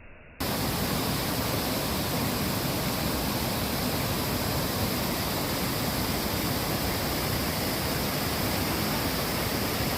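Steady rush of a waterfall's falling water, starting abruptly about half a second in and holding even and loud throughout.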